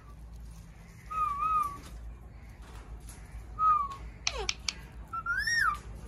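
Indian ringneck parakeet calling in short, pitched squawks. There is a wavering call about a second in, a brief one near four seconds, a quick falling squawk, and an arching, rising-and-falling call near the end.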